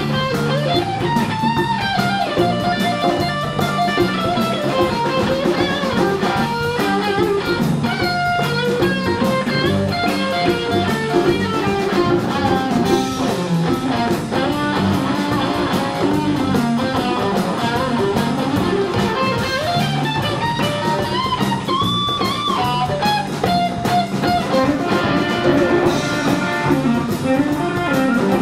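Live blues band playing an instrumental passage: an electric guitar lead with bent notes over a second electric guitar, drum kit and bass.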